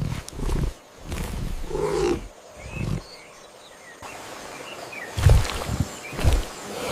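A series of short, low animal growls or grunts, one after another, with a few faint high chirps between them.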